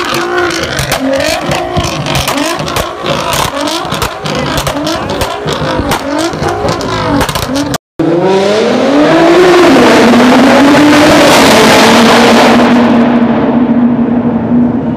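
Nissan GT-R R35's twin-turbo V6 revved in quick repeated blips, with sharp crackles between them. After a sudden cut, a GT-R R35 runs at full throttle through a tunnel: its engine pitch climbs, then holds high and steady, echoing off the tunnel walls.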